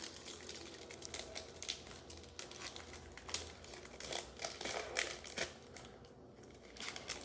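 Trading-card packs and cards being handled: faint, irregular crinkling and light clicking.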